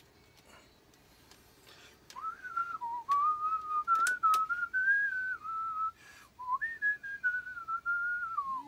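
A man whistling a tune: a single clear whistled tone stepping up and down in pitch, starting about two seconds in, with a couple of light clicks.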